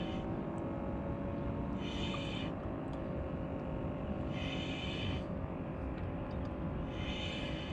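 Boat motor running steadily. Three short high-pitched sounds come at even spacing, about two and a half seconds apart.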